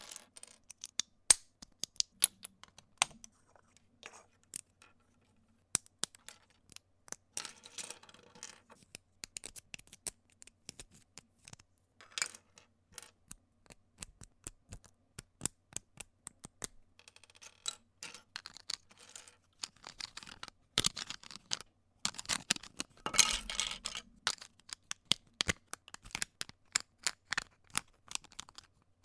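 LEGO bricks clicking and clattering: a long run of sharp plastic clicks and snaps, broken by several stretches of dense rattling, the loudest a little past two-thirds of the way through.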